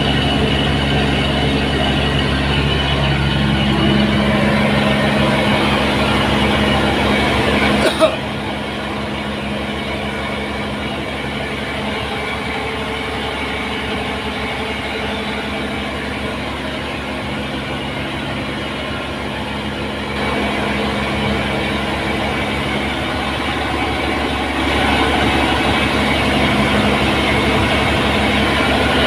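An engine running steadily. There is a sharp click about eight seconds in, after which it runs a little quieter; it grows louder again in steps over the last third.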